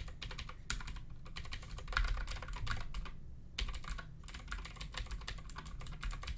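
Rapid typing on a new Clix gaming keyboard, keys clicking in quick runs with a brief pause about three seconds in.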